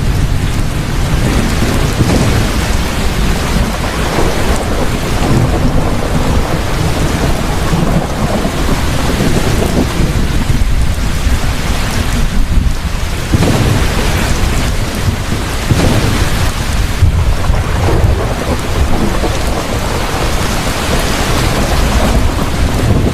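Thunderstorm: heavy steady rain with rolling thunder rumbling underneath, swelling and easing over several seconds.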